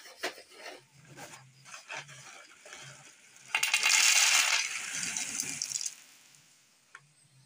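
Dry fusilli pasta poured from a bag onto a plate: a loud, dense clatter of hard pieces landing that starts about three and a half seconds in and dies away around six seconds. Before it, the bag rustles with small scattered clicks.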